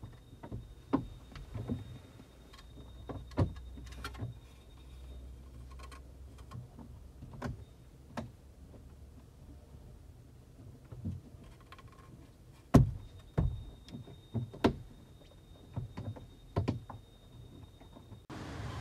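Hard carbon-fibre mirror covers being handled, with scattered clicks and knocks, the loudest about thirteen seconds in, over a faint low rumble.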